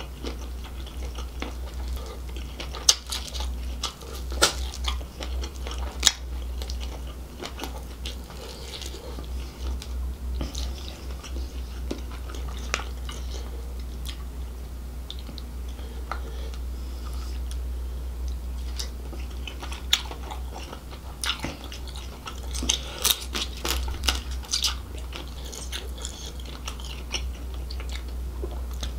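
Close-miked chewing and biting of grilled seafood and corn in a spicy gravy, with wet mouth sounds and irregular sharp crunches and clicks, busiest a few seconds in and again past the middle. A steady low hum runs underneath.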